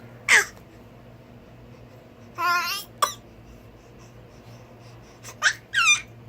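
Baby making short, high-pitched squeals and coos, several brief sounds separated by pauses.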